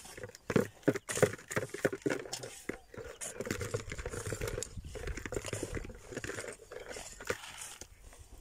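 A small hand hoe striking and scraping dry, stony soil in an irregular series of crunching strokes, digging holes for sowing corn seed.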